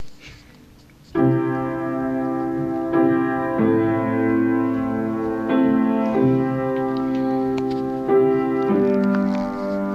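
Keyboard playing held chords, coming in about a second in and changing every second or two.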